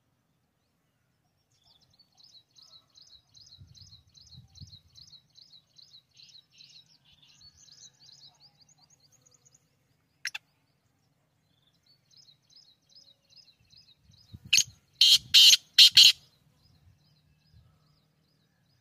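Quick high chirps from a small bird, about four a second, run for several seconds. Then comes a single sharp note, and later the black francolin's loud, harsh call: four or five grating notes in quick succession.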